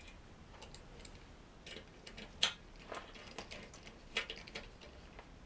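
Scattered light metallic clicks and taps, about half a dozen, the sharpest about two and a half seconds in, as a socket on a Ganzo G105 multi-tool's bit adapter is fitted and turned to tighten.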